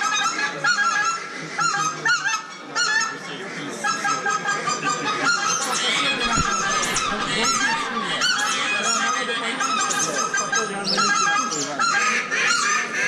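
Goose honking: many short honks overlapping in a dense, continuous chorus.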